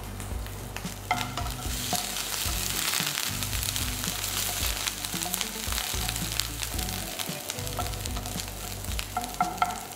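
Chopped ginger and garlic sizzling and crackling in a tablespoon of hot oil in a nonstick frying pan, stirred with a wooden spoon. The sizzle grows stronger about a second in.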